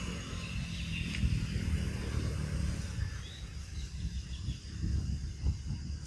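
Outdoor ambience made mostly of an uneven low rumble, with faint high chirps and a single click about a second in.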